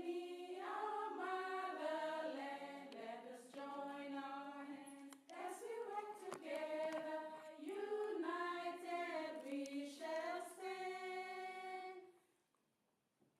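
A group of voices singing unaccompanied in long held notes, a choir-like sound that stops about twelve seconds in.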